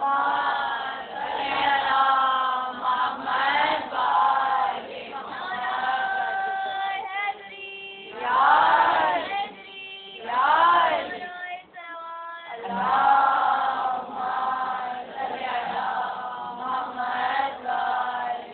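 A group of women's voices chanting together in unison, in long melodic phrases with a few short breaks.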